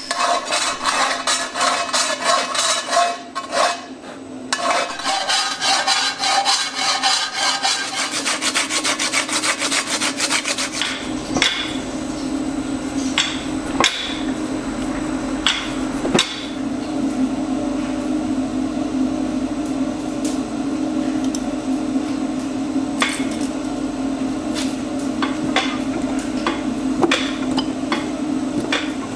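Rapid scraping and rasping of metal for about the first ten seconds, then a steady low hum with scattered sharp metallic clinks as a red-hot iron bar knocks against the tooling of a fly press.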